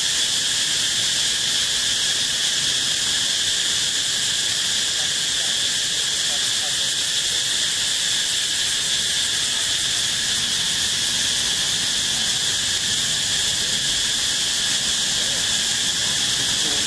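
Steady insect chorus: one shrill, unbroken drone with a constant high hiss above it.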